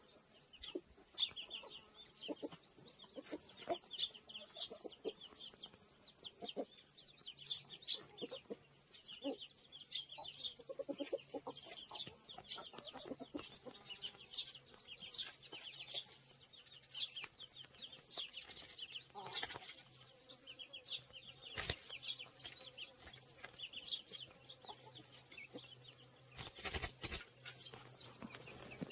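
Chickens clucking, mixed with quick runs of high chirps. A few times, about two thirds of the way in and again near the end, there are short bursts of wing flapping from a Eurasian tree sparrow fluttering inside a wire cage trap.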